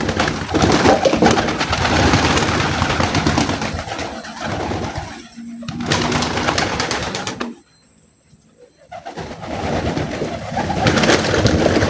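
Domestic pigeons cooing close by, mixed with loud rustling noise that drops out for about a second and a half past the middle.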